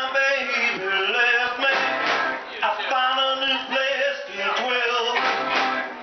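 Live rock band playing: electric guitars, bass and drum kit driving a steady beat under a male lead vocal.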